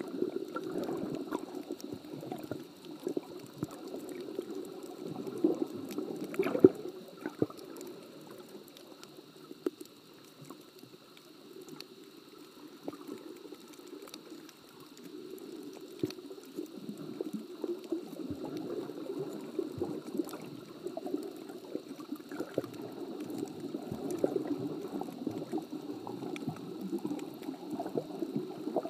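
Muffled water noise heard through a camera held underwater: a low, continuous churning slosh with scattered faint clicks and one sharper knock about six and a half seconds in.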